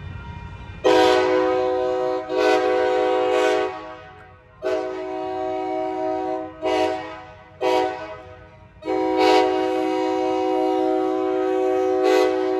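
Locomotive air horn sounding a chord in a series of six blasts, some long and some short, the last one held long.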